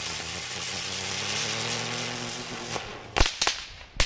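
Shazam flower ground-spinner firework spinning on asphalt: a loud hiss with a low whirring hum under it that dies away about three seconds in. Then come three sharp bangs in quick succession.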